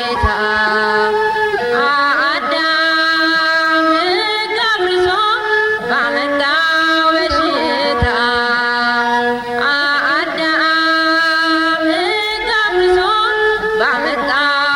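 Slow religious song: a singing voice holding long, wavering, ornamented notes over accompaniment.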